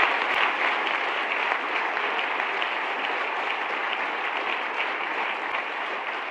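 A large seated audience applauding: dense, steady clapping that slowly dies down.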